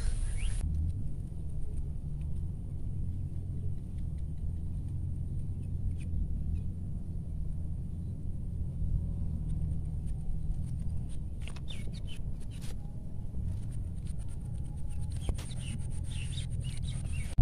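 Low steady rumble with a few faint bird chirps and occasional light clicks.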